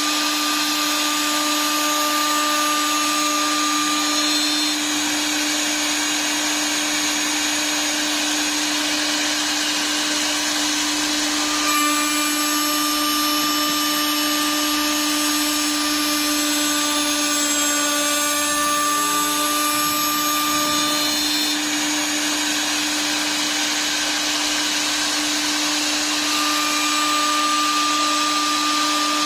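High-speed electric spindle of a CNC wood lathe running steadily with a constant hum-whine. The sound changes character about twelve seconds in and again about ten seconds later, as the cutting load shifts.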